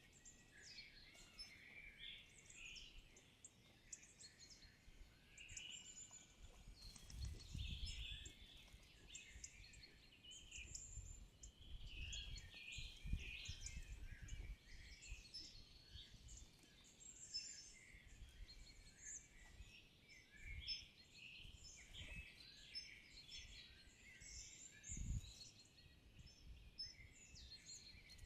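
Faint chorus of several birds singing and calling, many short chirps and trills overlapping, with a few brief low rumbles.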